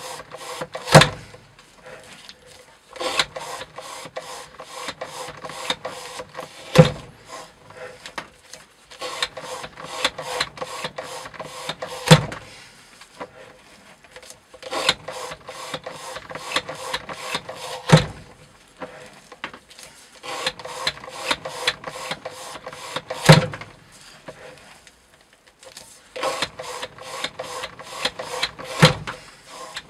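Bark River Wilderness Explorer knife with a CPM Cru-Wear blade sawing back and forth through rope in a cutting-test jig, about five quick strokes a second. A loud knock comes about every five and a half seconds, six times in all, each followed by a short pause before the strokes resume.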